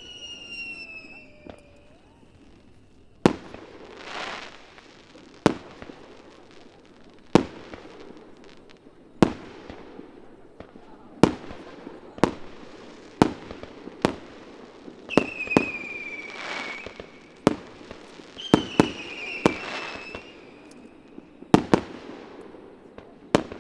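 Aerial firework shells bursting in a rapid star mine sequence, with sharp booms every second or two, each trailed by crackling. High falling whistles sound at the very start and twice in the second half.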